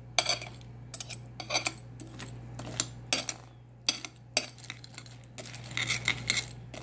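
Spoon clinking and scraping against a bowl of cereal and milk, a dozen or so irregular clinks.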